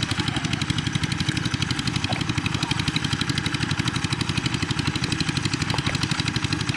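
A small engine running steadily, with a rapid, even pulse.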